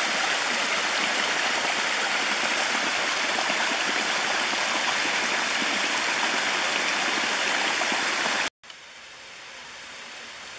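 Small mountain creek rushing and splashing over rocks in a steady rush. It breaks off suddenly near the end, leaving a much fainter steady rush.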